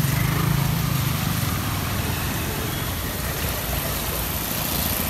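Motor vehicle engines running close by in a flooded street, over a steady noisy wash. A low engine hum is strongest in the first second and a half.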